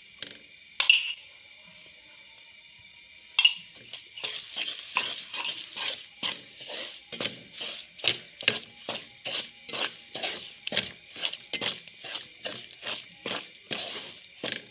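Wooden spatula stirring and scraping thick semolina halwa around a nonstick pan in ghee, in rhythmic strokes about twice a second, after a couple of sharp knocks at the start. The mixture is thickening and coming together.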